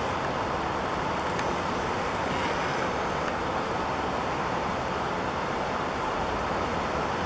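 Steady outdoor background noise, a constant even rush, with a few faint clicks about one and a half and three seconds in.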